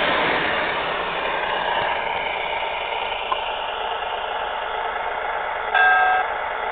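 Model train running on its track, heard from a camera riding aboard: a steady rushing noise that eases slightly after the first second. A short tone with several pitches in it sounds once, about six seconds in.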